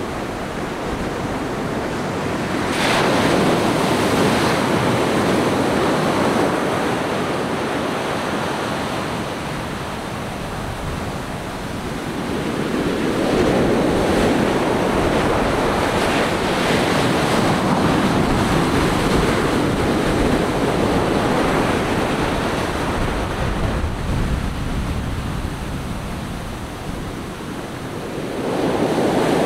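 Ocean surf breaking and washing up a sandy beach: a steady rushing hiss that swells louder three times, a few seconds in, about halfway, and near the end.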